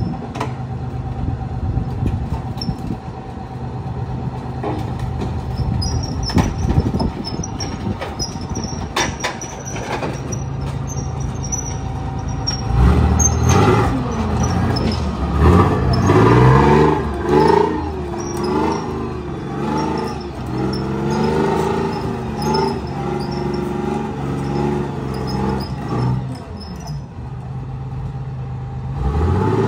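FV432 tracked armoured vehicle running, with clanks and squeaks from its tracks as it comes off a low-loader's ramp. From about halfway its engine gets louder, revving up and down as the vehicle drives off.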